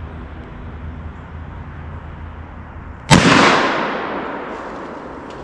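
A single-shot .44 rifle fires once, about three seconds in. The sharp crack is followed by an echoing report that fades away over about two seconds.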